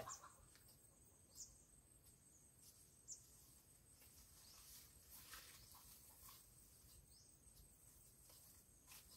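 Near silence: faint outdoor ambience with a thin, steady high tone and a few faint, brief high chirps and scrapes.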